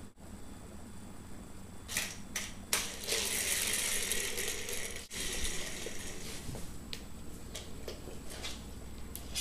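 Small plastic toy car being batted about on a hardwood floor: a few sharp clicks as it is knocked, then a couple of seconds of rattling as its plastic wheels roll across the boards, and more scattered clicks and taps after.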